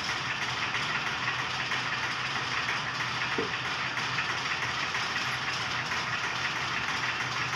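Sectional warping machine running steadily as it winds nylon warp yarn off the drum onto the beam: an even mechanical noise with a steady low hum.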